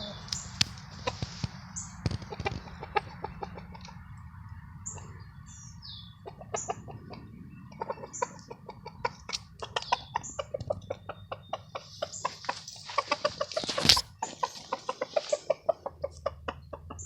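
Rhode Island Red rooster clucking in short, high notes, among many light clicks and knocks, with one sharp loud knock about fourteen seconds in.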